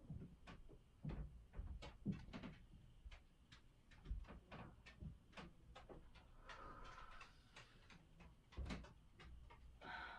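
Near silence with faint, scattered soft knocks and rustles of a person shifting on a blanket on the floor.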